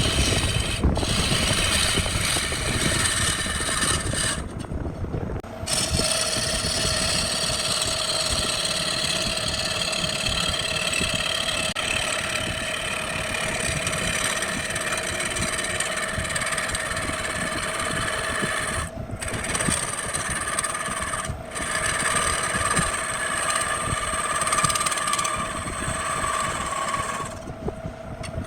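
Wood lathe running with a steady motor hum, with rubbing and scraping as work is done on the spinning wood-and-epoxy blank. The sound drops out briefly a few times.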